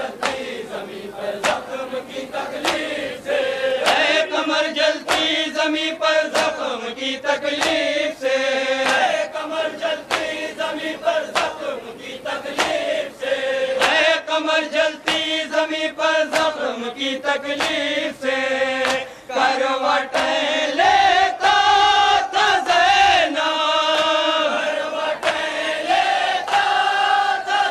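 A group of men chanting an Urdu noha (Muharram lament) in unison, with a steady beat of hand strikes a little faster than once a second, typical of matam chest-beating.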